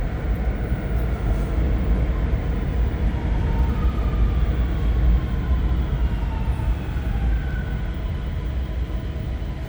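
REM light-metro train running, a steady low rumble with faint motor whines that slowly shift in pitch.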